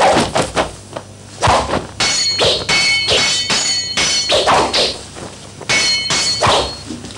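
Kung-fu fight sound effects: a quick run of whacks and thuds of blows, then from about two seconds in several sword clashes, each a sharp metallic clang that rings on briefly.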